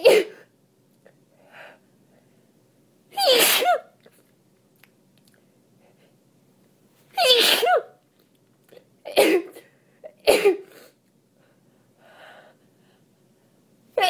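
A person sneezing five times: wet, congested sneezes from a head cold made worse by allergies. Two are longer, voiced sneezes, and the last two come about a second apart, with soft breaths or sniffs in between.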